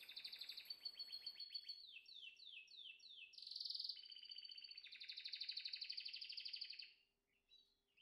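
Canary singing: fast rolling trills and runs of quick falling notes, ending about seven seconds in.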